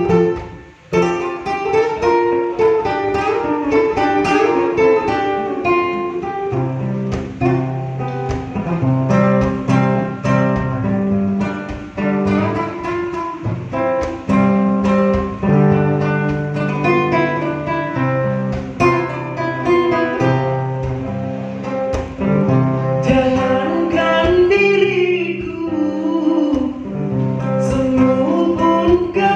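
Acoustic guitar played fingerstyle, a run of plucked melody and bass notes forming an instrumental break in a slow dangdut song. The singer's voice comes in near the end.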